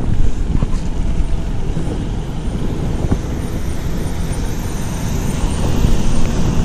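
Wind rushing over a cyclist's action-camera microphone at riding speed, a steady low rumble, mixed with road traffic noise that includes a dump truck passing on the other side of the road.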